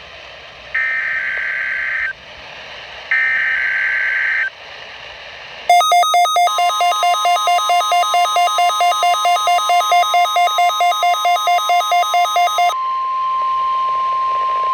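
NOAA Weather Radio Required Weekly Test: two short bursts of buzzing SAME header data tones, each about a second long. Then a rapidly pulsing electronic alarm beep, about four or five beeps a second, sounds over a steady single-pitch warning alarm tone. The beeping stops about three-quarters of the way through while the steady tone carries on.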